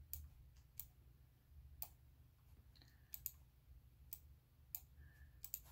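Faint, scattered clicks of computer input, about nine at uneven intervals, over a low steady hum in a near-quiet room.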